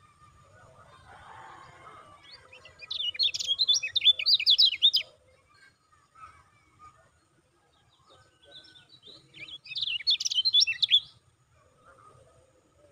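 A caged kecial kuning, a yellow white-eye, singing in two bursts of fast, high chattering notes: one about three seconds in lasting two seconds, and another about nine seconds in.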